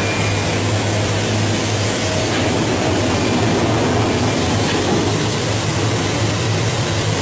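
Stainless-steel spiral-auger potato machine of a french fries line running: a steady, even noise over a constant low hum.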